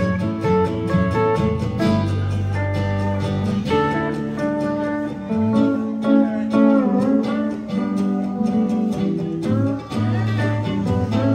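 A live band playing an instrumental passage: strummed acoustic guitar, mandolin and electric bass over drums, with a steel guitar sliding between notes a few times.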